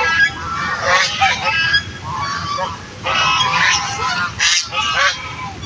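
Several ducks quacking, with overlapping calls coming in quick bursts about once a second.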